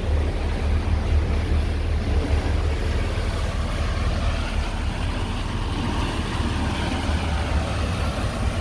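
Motor cruiser's engines running steadily under way, a low drone mixed with the rush of wind and water past the boat.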